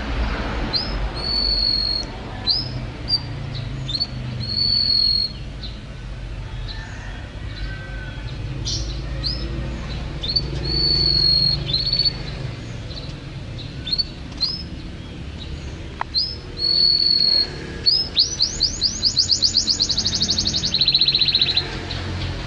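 White-rumped shama singing: clear whistled notes, some short upslurs and some held longer, then near the end a fast run of rising sweeps that turns into a rapid trill. A steady low hum runs underneath.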